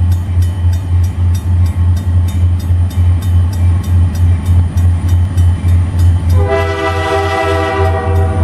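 Freight diesel locomotive sounding its multi-tone air horn about six seconds in, one chord held for about two seconds. Under it is a loud low throb pulsing about four times a second throughout.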